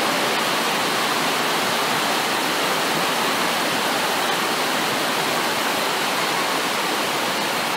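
Heavy rain pouring down in a steady, unbroken rush.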